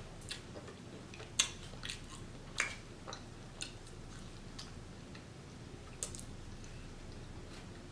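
Close-miked chewing of food, with irregular wet mouth clicks and smacks, the loudest about a second and a half in, again near the middle and once about six seconds in, over a faint steady hum.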